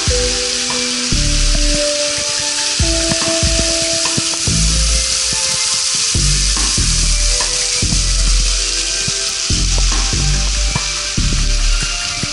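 Steady hiss of a waterfall's falling water, with low rumbles coming and going. Background music with held notes that change pitch plays over it.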